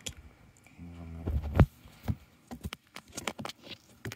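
Scattered light knocks and rustles of small objects being handled. A short low hum leads into one louder thump about a second and a half in.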